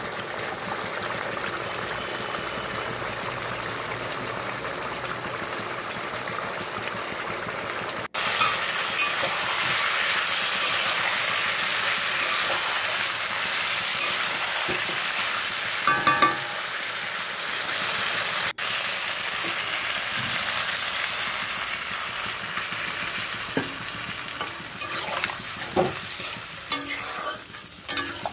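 Potato and papaya pieces frying in spiced tomato masala in a pan: a steady sizzling hiss, with a few clinks of a metal spatula against the pan about halfway through and again near the end.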